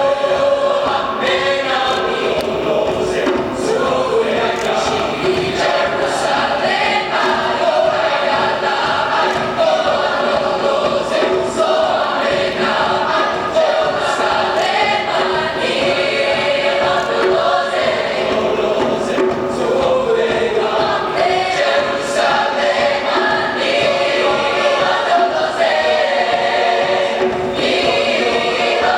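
A choir singing, many voices together without a break.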